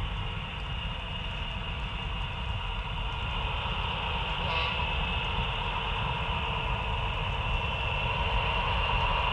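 Diesel locomotive running sound of a model freight train: a steady engine rumble and drone that grows gradually louder as the train approaches.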